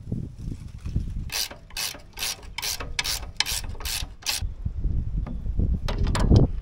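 Long-handled hand ratchet clicking through about eight quick return strokes, roughly two a second, then a few more clicks near the end, as a bolt on the dump truck's bed hoist is worked loose. A loud low bump comes just before the end.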